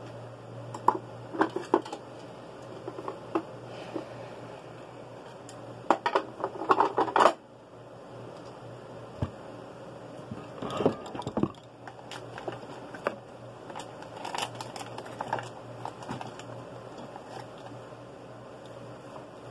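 Small clicks, taps and rustles of makeup items being handled, coming in short clusters, over a steady low hum.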